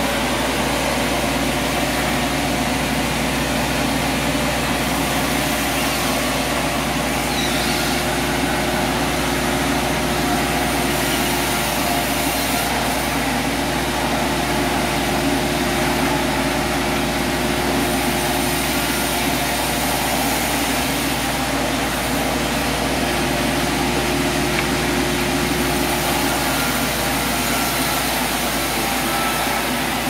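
Band sawmill running steadily: a continuous machine hum with a few constant tones that does not change in level or pitch.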